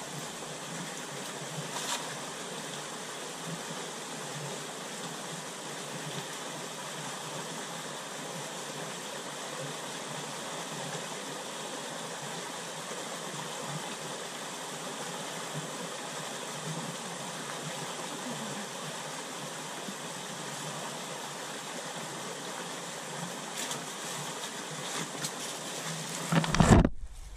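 Water of a small rocky stream rushing steadily over shallow rapids. A brief louder noise comes just before the end.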